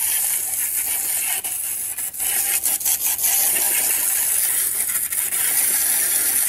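Water jet from a hose nozzle spraying onto the metal flame guard of a pellet smoker, a steady hiss of spray spattering on the metal as it rinses off scrubbed rust. The hiss dips and wavers briefly about two seconds in as the jet moves across the plate.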